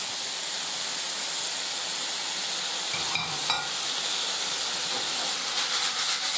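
Soffritto sizzling steadily in a stainless steel frying pan as spaghetti squash strands are scraped in from a plate. A few clicks with a short metallic ring about three seconds in, and near the end a quick run of strokes as the pan is shaken.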